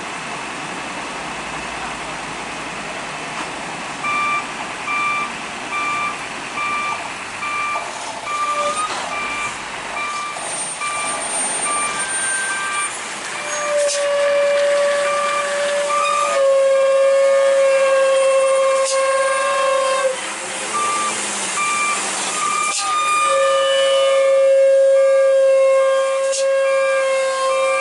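Heavy truck's brakes squealing in long, steady high-pitched whines, starting about halfway through and loudest in the second half. Underneath, a vehicle's beeping alarm pulses about twice a second over engine and road noise.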